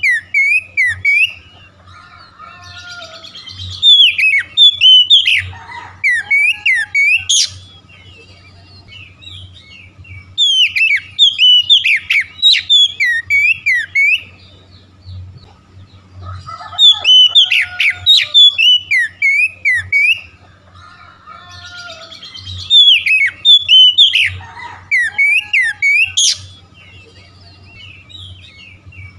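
Oriental magpie-robin (kacer) singing: loud bursts of varied whistles, chattering notes and quick rising sweeps, a few seconds at a time, with quieter gaps between. The same sequence of phrases comes round again about nineteen seconds later.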